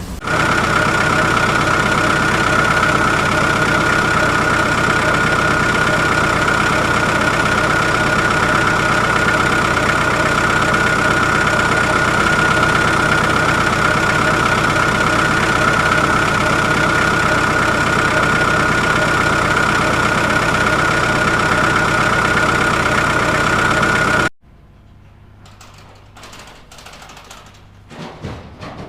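Heavy machine's engine running steadily, with a steady high whine over it; it cuts off abruptly about 24 seconds in, leaving only faint scattered sounds.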